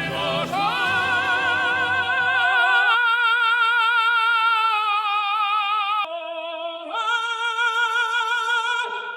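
A high singing voice holds long notes with wide vibrato in an operatic style. A low accompaniment drops out about three seconds in, and the voice goes on alone, breaking briefly twice near the end.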